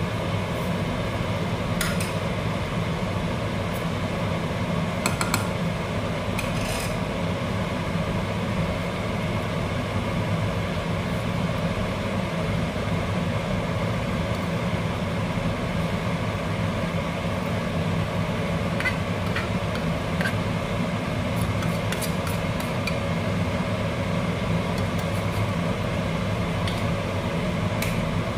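A pan of soup on a gas stove under a steady low hum, with a few light clinks and taps from a spoon and ingredients at the pan now and then.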